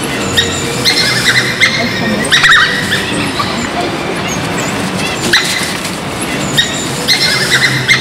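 African wild dogs giving high-pitched twittering, yipping calls in several quick bursts, with pauses between them.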